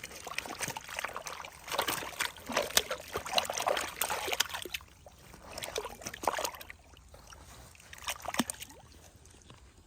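Water splashing and sloshing in irregular bursts, busiest in the first half, with a few more splashes around the middle and shortly before the end.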